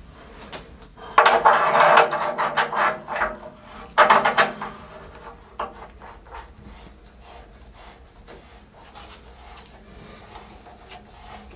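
Brass plumbing fitting (an automatic air vent on a T-piece) being handled and threaded onto the boiler's threaded stub, with rasping, scraping metal-on-metal sounds. The scraping is loudest in two bursts in the first few seconds, then fades to faint clicks and turning.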